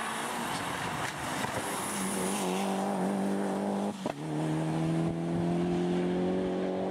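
Mitsubishi Lancer Evolution rally car's turbocharged four-cylinder engine running hard at high revs through a wet corner, over the hiss of tyres on the wet road. The engine note breaks off about four seconds in and comes back lower, rising slowly.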